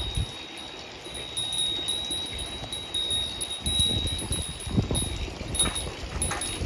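A steady, high, chime-like ringing tone that swells now and then, over patches of low rumbling about halfway through and again near the end.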